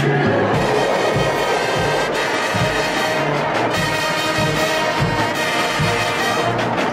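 HBCU show-style marching band playing, with the brass section (trumpets, trombones and sousaphones) holding sustained chords over a regular low pulse.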